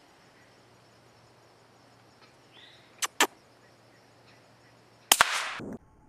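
Suppressed rifle shots: two pairs of sharp cracks, one about three seconds in and a louder one about two seconds later, each pair a fraction of a second apart, the second followed by a short burst of noise.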